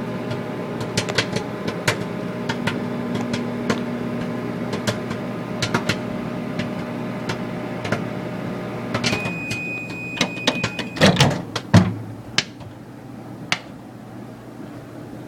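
Microwave oven running with popcorn kernels popping inside in scattered sharp pops. About nine seconds in, the oven's hum stops and it gives one long beep of about two seconds. A few loud knocks and a couple of last pops follow.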